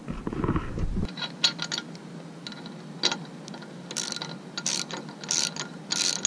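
Hand ratchet with a socket clicking as it tightens a nylon-insert lock nut on a bolt through an aluminium tube. A low rumble in the first second and a few scattered clicks, then a run of ratchet strokes about every two-thirds of a second in the second half.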